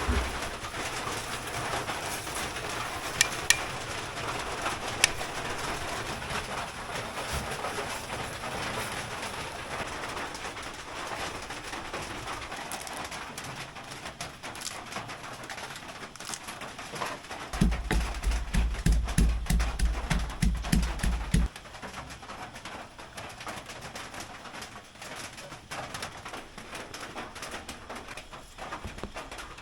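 Steady rain in a forest during a storm. A few seconds past the middle there is a run of low, even thumps, about three a second, lasting about four seconds.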